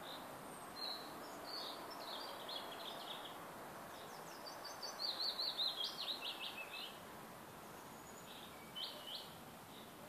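A songbird singing in short phrases of rapid high notes: a brief descending run a couple of seconds in, a longer and louder run about halfway through, and two short notes near the end, over a steady background hiss.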